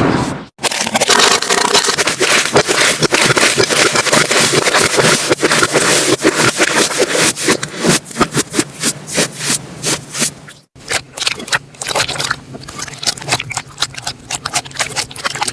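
Slime being squeezed and poked, giving a dense run of crackling clicks that thins to scattered, separate clicks in the second half, with two short breaks where the sound cuts out.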